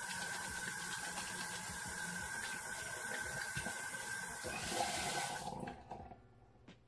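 Bathroom sink tap running while hands are washed under it, with a faint steady whine in the flow. The water briefly gets louder, then the tap is turned off about five and a half seconds in, leaving a few faint clicks.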